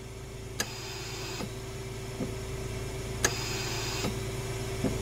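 A steady machine hum with a low buzz and a held tone, broken by a handful of sharp clicks about a second apart.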